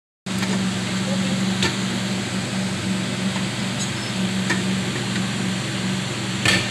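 A steady motor hum over an even hiss, with a few faint clicks.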